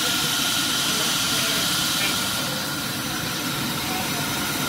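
Rice-crisp cereal extrusion line running steadily: a constant mechanical drone with hiss and a steady high-pitched whine.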